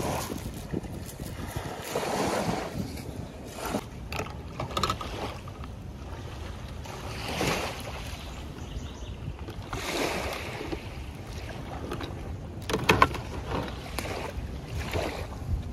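Water sloshing in swells about every two to three seconds, with wind rumbling on the microphone and a few sharp knocks about thirteen seconds in.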